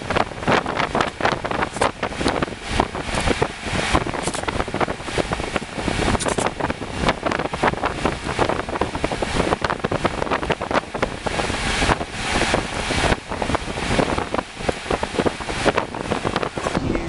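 Green painter's tape being pulled off the roll, torn and pressed onto a car side mirror for masking: continuous crackling and rustling with many small, sharp ticks.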